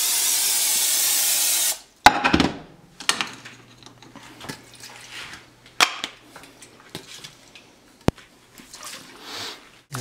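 PAM aerosol cooking spray hissing steadily onto a nonstick frying pan, cutting off after about two seconds. A few sharp knocks and clicks follow.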